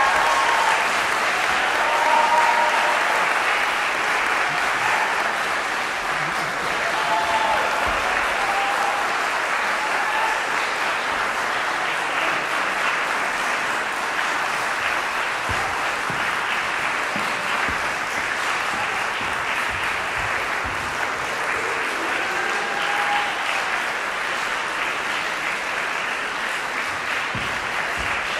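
Audience applauding steadily, with a few voices calling out briefly over the clapping.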